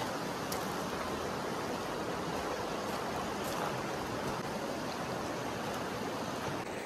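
River water rushing steadily, an even hiss of flowing water.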